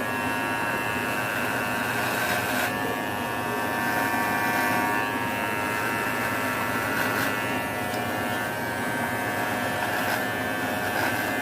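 Cordless electric hair clipper with a ceramic blade running with a steady buzz, its tone shifting briefly a few times.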